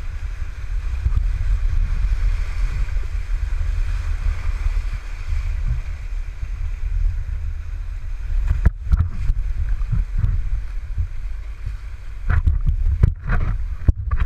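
River water rushing around a raft, with heavy wind buffeting on the microphone. From a little past halfway, a run of irregular knocks and thumps sounds over it.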